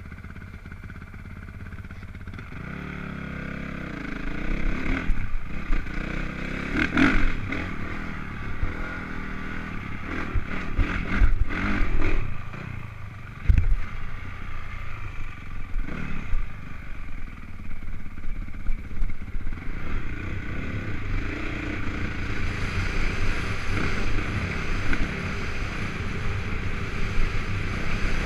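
Honda CRF450 dirt bike's single-cylinder four-stroke engine revving and pulling under load as the bike is ridden over rough desert ground, heard from a helmet-mounted camera. The engine is quieter for the first few seconds and louder from about four seconds in. Several sharp knocks follow over the next dozen seconds as the bike hits bumps.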